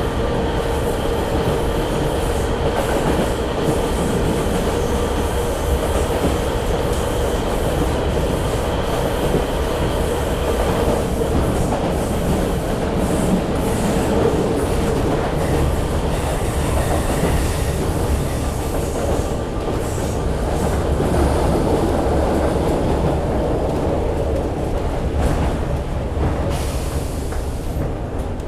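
Train running on rails: a steady rumble with wheels clattering over the track and a steady whine underneath, and a brief hiss near the end.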